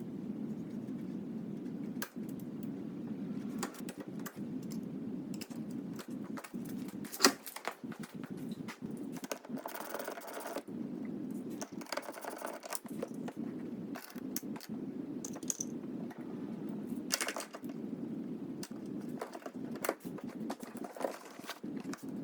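Scattered clicks and knocks of tools and plastic trim being worked while a small hatchback's interior is stripped, over a steady low hum. One knock about seven seconds in is much louder than the rest.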